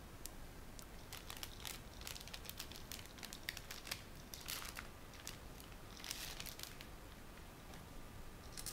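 Faint rustling and crinkling of a robot kit's packaging being handled: cardboard box parts moved about and foil anti-static bags crinkling, with scattered light taps and several short bursts of rustle.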